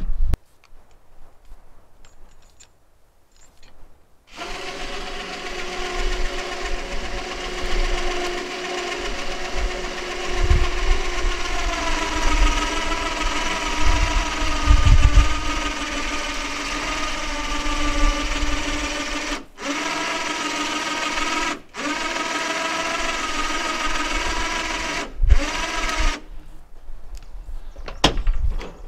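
Electric hoist on a truck-bed boom winching a log up, starting about four seconds in: a steady motor whine whose pitch sags slightly under the load. It cuts out briefly three times as it is stopped and restarted, then stops near the end, with a few dull thumps of the log along the way.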